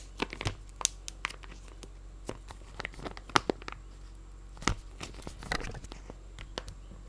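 Knife cutting and prying at glued packaging: irregular crackles, clicks and crinkling as the strong glue gives way.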